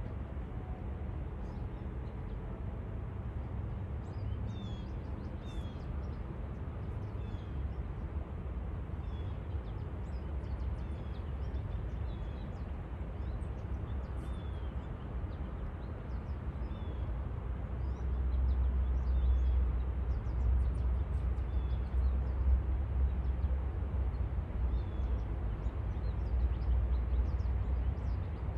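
Outdoor ambience: a steady low rumble, louder from about two-thirds of the way through, with a small bird giving short chirps every second or two.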